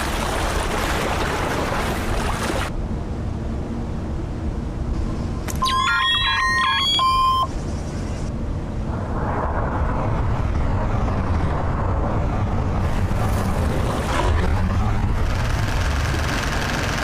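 Layered cartoon sound effects: a steady, loud noise bed with deep low end, and about six seconds in a brief flurry of quick rising whistles and short held beeps lasting under two seconds.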